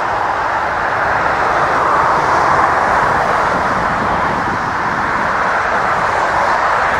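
Jet engines of a twin-engine airliner running on the runway: a loud, steady rushing noise.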